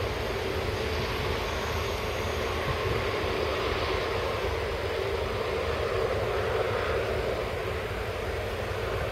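Airbus A330-243's Rolls-Royce Trent 700 jet engines running at low thrust as the airliner taxis, a steady engine noise with a low rumble that swells slightly midway.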